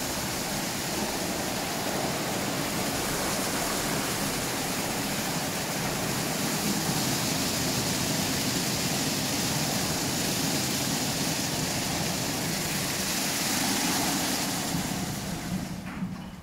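Automatic car wash running: water jets spraying and big rotating brushes scrubbing over a car, a steady rushing noise. It fades away near the end.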